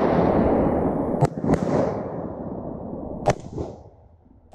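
Shotgun fire at wood ducks: a loud report whose echo rolls through the swamp woods and fades over about three seconds, with further sharp shots about a second and a quarter, a second and a half, and three and a quarter seconds in.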